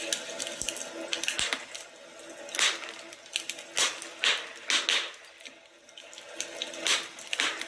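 Wood fire crackling, with irregular sharp pops over a steady hiss; the loudest pops come around three to five seconds in and again near the end.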